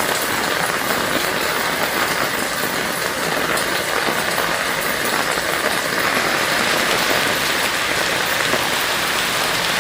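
Heavy rain falling steadily, a dense even hiss of drops with no pauses or thunder.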